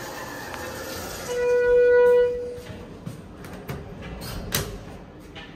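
Schindler 330A elevator's electronic signal giving one steady beep about a second long, then a few sharp clicks as a floor button on the car panel is pressed.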